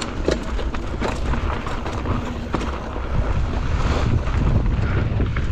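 Mountain bike rolling along a trail: wind rumbling on the microphone, with frequent short knocks and rattles from the bike over rough ground.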